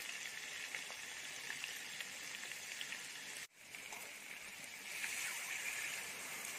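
Browned mutton masala sizzling in a hot pan. After a brief break about halfway, a louder, higher hissing sizzle as hot water goes into the pan.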